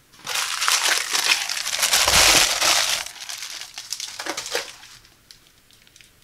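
Plastic bubble mailer crinkling loudly as hands handle it for about three seconds, then quieter crinkles and a few light taps that fade out about five seconds in.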